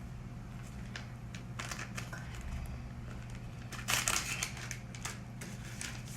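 Packaging being handled and opened by hand: scattered rustling and crinkling, with a louder crackling rustle about four seconds in, over a low steady hum.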